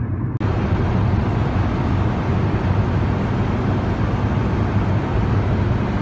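Steady road noise from a car driving along a motorway, heard from inside the car: a low, even rumble with hiss above it and no words. It comes in after a brief dropout about half a second in.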